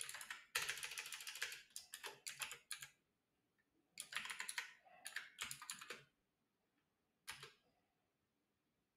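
Computer keyboard typing: two runs of quick keystrokes, then a single keystroke about seven seconds in.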